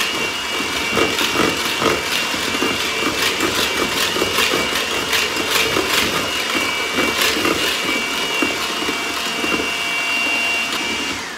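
Electric hand mixer whipping egg whites and sugar into meringue in a plastic bowl: a steady motor whine with irregular ticking and rattling as the beaters knock against the bowl. The motor winds down near the end.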